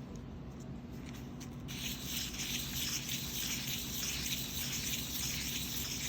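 A metal bezel being rubbed on sandpaper in figure-eight strokes to flatten its edge, a rhythmic rasping that starts about two seconds in.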